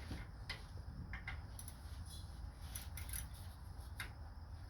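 Faint, irregular metal clicks and taps of a small ratchet and socket being handled and fitted to a mower's oil drain plug, over a low steady hum.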